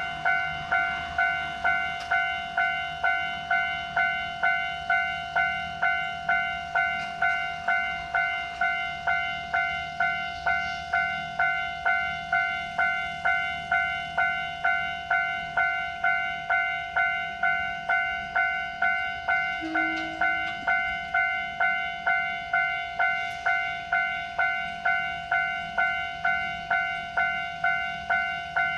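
Japanese railroad crossing warning bell ringing steadily, a clear electronic bell tone repeating about three times every two seconds.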